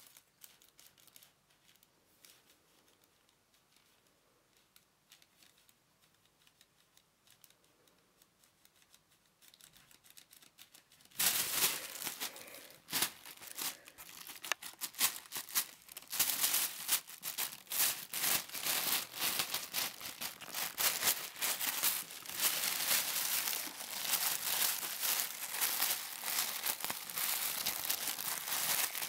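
Thin plastic carrier bag rustling faintly, then from about eleven seconds in crinkling loudly and continuously as a cat wriggles about in it.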